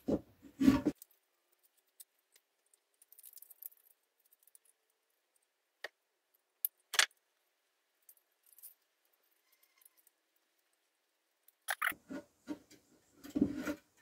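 Wooden beehive box parts and a holder strip being handled on a workbench: a short clatter of knocks at the start, a couple of sharp clicks midway, and more knocking near the end, with quiet between.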